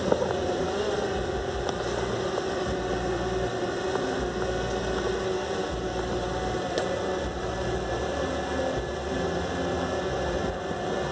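Quadcopter drone hovering, its propellers giving a steady hum with a held tone over a wash of noise.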